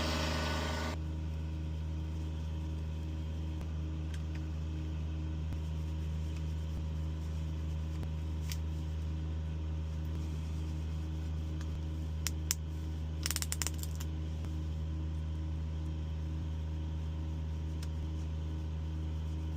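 Steady low hum of an idling vehicle engine, with a faint regular pulse. A few light clicks and taps come about two-thirds of the way through.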